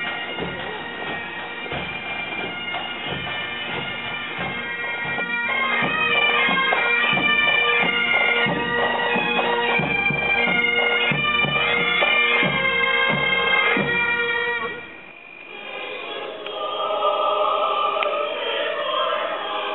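Bagpipe pipe band playing a tune over steady drones, with drum strokes beneath. About three-quarters of the way through it cuts off suddenly and voices singing take over.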